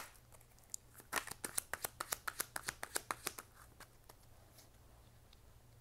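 A deck of tarot cards being shuffled by hand: a quick run of sharp card snaps, about nine a second, starting about a second in and lasting some two seconds, with a few single taps before and after.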